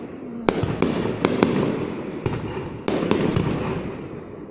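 Aerial fireworks display: a quick run of sharp bangs in the first second and a half and a few more about three seconds in, over a continuous rumble of bursts.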